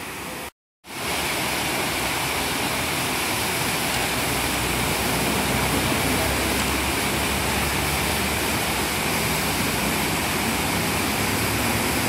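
Steady rush of a high waterfall and of the water cascading over the rock ledges below it. The sound cuts out completely for a moment about half a second in, then comes back a little louder.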